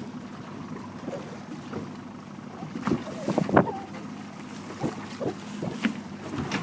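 Small boat under way on choppy water: wind buffeting the microphone and water splashing against the hull, over a steady low hum. The buffets come irregularly and are loudest about three and a half seconds in.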